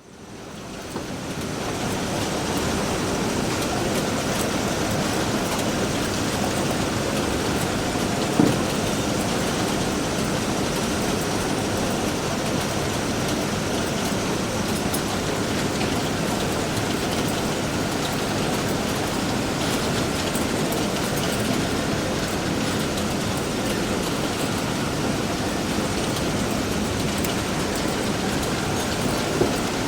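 Construction-site ambience: a steady, even rush of machinery noise that fades in at the start, with one sharp knock about eight seconds in and a couple of small clicks near the end.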